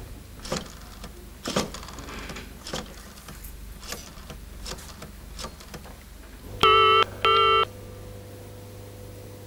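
Rotary telephone being dialled: a run of clicks and short whirs as the dial is turned and springs back. About six and a half seconds in, a loud ringback tone sounds once as a double ring of two short buzzes, the number ringing at the other end, with a faint steady hum under it.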